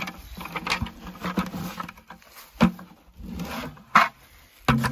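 Footsteps crunching through dry fallen leaves, with plastic buckets knocking and scraping as they are handled and set down; a few sharp knocks stand out near the middle and the end.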